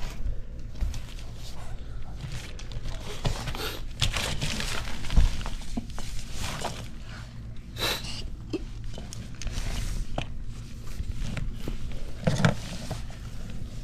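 Handling noise: plastic toys being picked up and set down on a fabric tent floor, with scattered knocks and rustling over a steady low hum.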